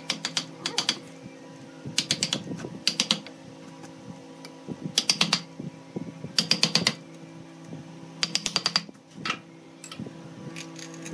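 A mallet tapping a wood chisel in quick bursts of several light strikes, a second or two apart, with a few single taps near the end, chopping rough waste wood away from the top of a turned wooden vase. A steady low hum runs underneath.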